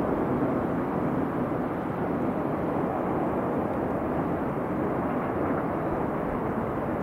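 Steady city ambience heard from a high open-air rooftop: an even, dull rush with no distinct events.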